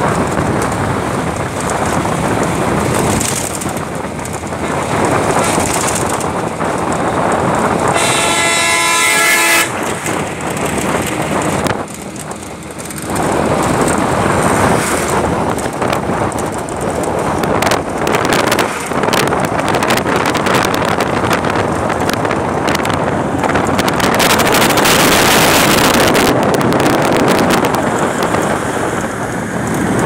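Steady wind and running noise from riding in a moving road vehicle. About eight seconds in, a vehicle horn sounds once for about a second and a half.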